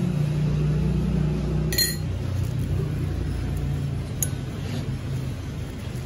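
Steady low mechanical hum or rumble, with a sharp, ringing clink about two seconds in and a lighter tick about four seconds in.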